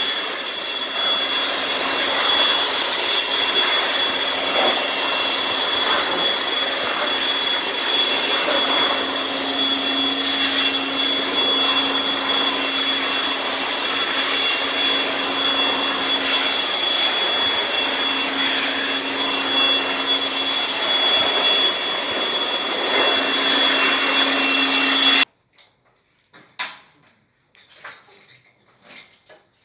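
A motor-driven machine running steadily with a high whine, switched off abruptly about 25 seconds in, followed by a few light clicks and knocks.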